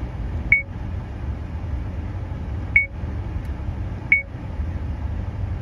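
70mai A200 dashcam's button beeps as its menu buttons are pressed: three short, high beeps spaced irregularly, over a steady low rumble.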